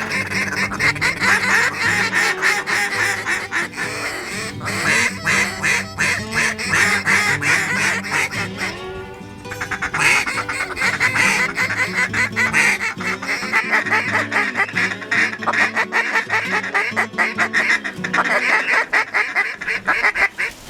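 Rapid, continuous duck quacking and chatter, with background music running underneath. About nine seconds in, a rising whistle-like glide cuts through briefly.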